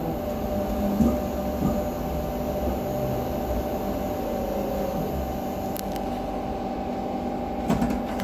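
Cabin sound of a Renfe Cercanías electric commuter train running: a steady motor hum over a low rumble, with a few short clicks and knocks from the carriage about a second in and again near the end.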